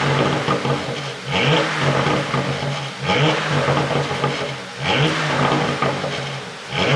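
Porsche Panamera 4S twin-turbo V6 revved in repeated blips, about four times, each rising quickly and falling away. As the revs drop there is crackling and popping from the exhaust on the overrun.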